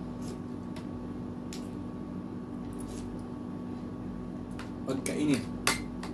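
Spoons and forks clinking now and then against plates and a soup bowl during a meal, over a steady hum from a wall air conditioner. Near the end there is a short mouth sound from one of the diners.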